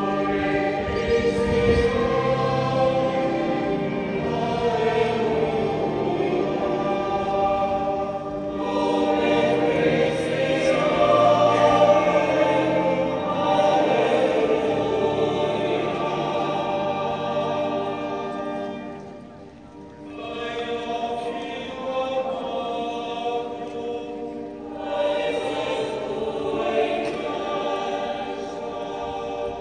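Many voices singing a hymn together in long held phrases, with a short lull about two-thirds of the way through before the singing resumes.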